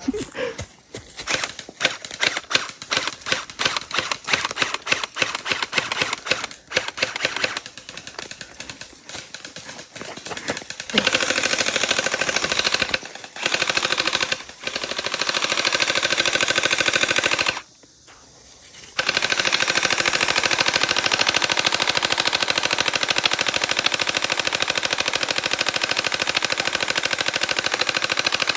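Water bullet (gel-ball) blaster firing. For about the first ten seconds it fires scattered single shots and short strings. After that come long bursts of rapid automatic fire, broken by short pauses, with the longest pause about two-thirds of the way in.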